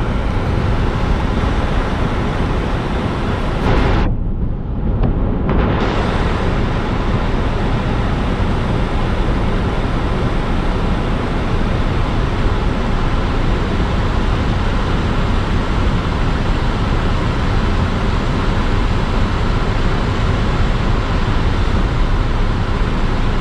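Steady rush of air from a 2009 Subaru Outback's air-conditioning vent, blowing cold with the engine idling. The hiss is briefly muffled about four seconds in.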